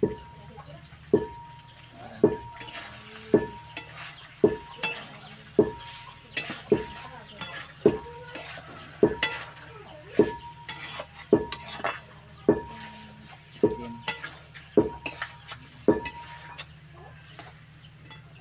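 Spatula stirring chicken curry in a steel karahi, knocking against the pan at an even pace a little over once a second, with the curry sizzling lightly as it fries.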